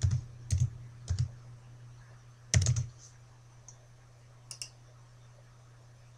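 Sharp clicks from a computer mouse and keyboard: a few single clicks in the first second or so, a louder quick cluster about two and a half seconds in, and a faint pair of clicks later, over a steady low hum.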